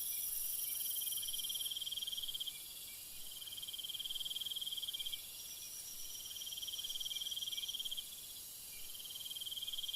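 Cricket trilling: four fast-pulsed, high-pitched trills of about two seconds each, separated by short pauses, over a faint steady hiss.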